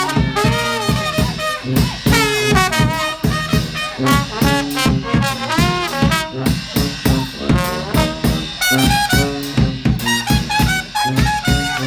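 Live brass band playing, led by trumpet and sousaphone, over a steady beat of about three to four strokes a second.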